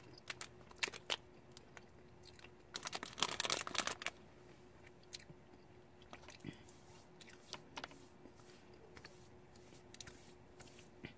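A person chewing a chocolate-dipped marshmallow Peep: soft, scattered mouth clicks and smacks, with a denser run of them about three seconds in.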